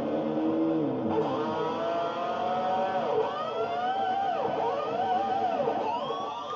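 Electric guitar notes bent with the whammy bar: held notes sag in pitch, then swoop up, and from about halfway the pitch dips and springs back several times in quick wobbling arcs before settling on a high held note near the end.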